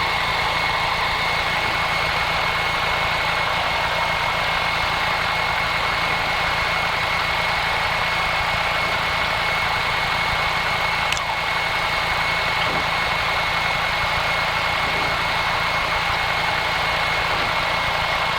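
Light aircraft's piston engine and propeller running steadily at low power, heard from inside the cockpit as a fast low throb under an even hiss with a thin steady high tone.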